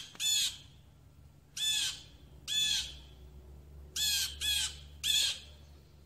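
Blue jay giving harsh, screeching jay calls: six short calls at uneven intervals, two of them close together about four seconds in.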